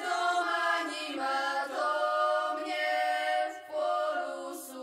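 An unaccompanied choir sings a slow song in long, held notes, with a brief break between phrases about three and a half seconds in.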